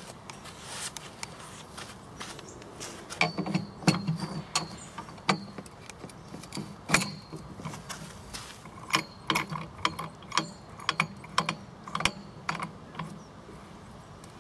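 Irregular mechanical clicks and clunks from a Bola bowling machine's parts being handled, coming in quick clusters for most of the stretch.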